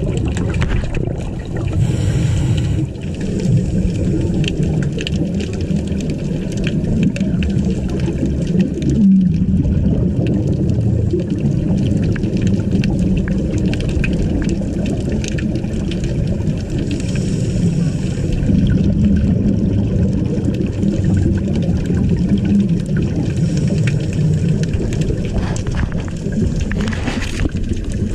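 Underwater sound picked up through a camera housing: a steady low rumble of moving water with fine crackling clicks, and every several seconds a hissing swell of scuba exhaust bubbles.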